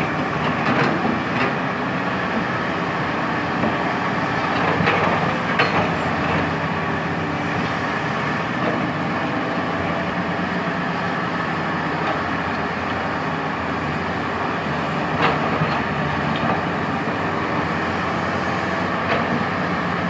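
Sany hydraulic excavator's diesel engine running steadily under working load while it digs, with a few sharp knocks, typical of the bucket striking rock.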